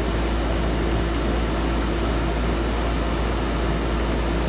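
Lennox central air-conditioner condenser units running: a steady fan whoosh with a low rumble and an even motor hum, the units cooling.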